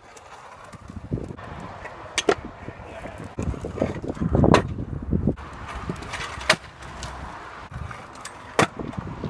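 Stunt scooter wheels rolling over concrete paving slabs, with about four sharp clacks of the scooter hitting the ground.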